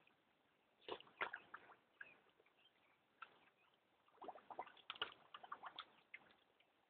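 A terrier puppy with its muzzle in a plastic water bowl, making faint scattered clicks, splashes and scrapes in short clusters, busiest about four to five seconds in.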